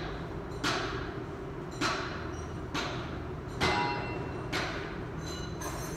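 Sharp metal knocks, about one a second, six in all, several leaving a brief metallic ringing tone.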